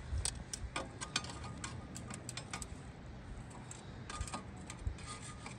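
Charcoal briquettes being set in place around a cast iron camp oven: scattered light clicks and taps, several close together in the first couple of seconds and a few more later.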